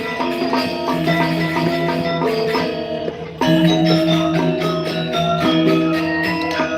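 Balinese gamelan ensemble playing: bronze metallophones struck in fast, dense interlocking patterns over a held low tone. The music eases about three seconds in, then comes back suddenly loud.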